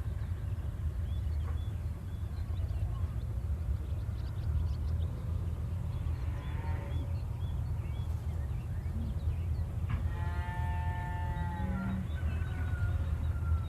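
Farm ambience over a steady low rumble, with scattered faint bird chirps. A cow moos briefly about six seconds in, then gives a longer, louder moo about ten seconds in.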